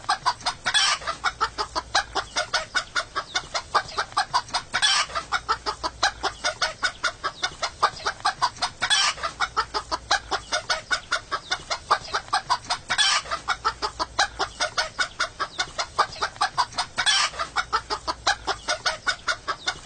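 Chickens clucking in a quick run of short clucks, several a second, as a looped ringtone: the same few-second stretch repeats about every four seconds.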